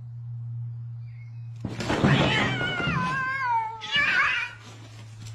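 Domestic cats fighting: a sudden harsh outburst about a second and a half in, turning into a yowl that falls in pitch, then a second, shorter yowl about four seconds in.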